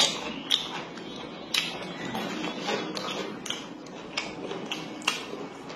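Chewing a mouthful of food with wet smacking clicks, irregular, about one every half second to a second.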